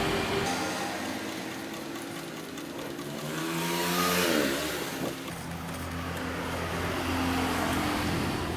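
A motor vehicle engine running past, its pitch falling about four seconds in.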